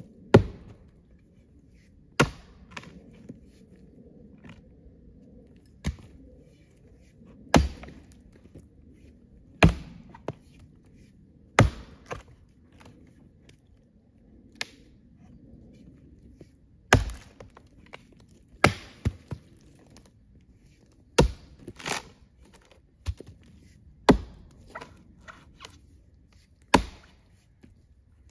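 Axe chopping into a rotten, dead tree snag: a dozen or so sharp strikes about every two seconds, some followed by a few lighter knocks.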